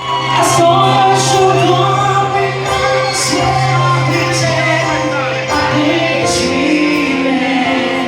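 Choir singing with accompaniment, over a held low note that shifts to a new pitch about six seconds in.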